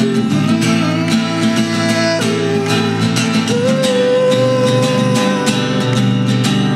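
Crafter steel-string acoustic guitar strummed steadily in chords, with a voice singing long held notes over it; the sung line drops about two seconds in and slides back up about a second later, then holds.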